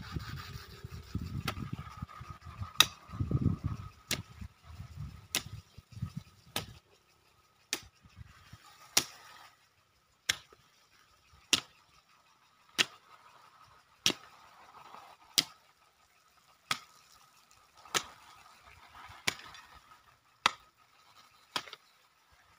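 Hoe blade chopping into garden soil, a sharp thud about every 1.3 seconds, as the ground is dug over for planting. A low rumble runs under the first few strikes.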